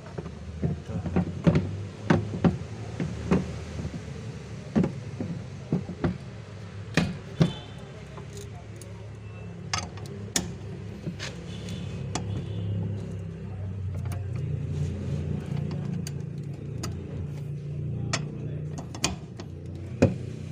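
Irregular sharp clicks and knocks of parts and hand tools as a fuel pump is fitted, over a steady low hum.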